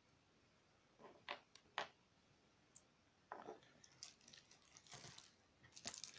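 Small plastic electronic parts being handled in a clear plastic compartment box: a few sharp clicks about a second in, then rustling and crinkling of plastic bags from about three seconds in.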